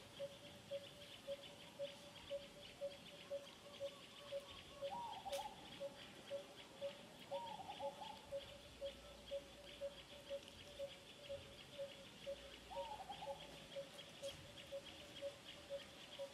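Faint forest ambience: a low single note repeated evenly about twice a second over a steady high, fast-ticking insect buzz, with three short falling calls.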